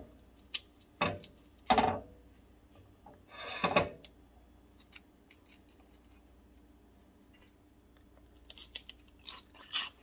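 Crisp homemade microwave potato chip crunching as it is bitten and chewed, in a cluster of quick crackles near the end. There are a few short clicks and handling sounds earlier as a chip is taken off the plate.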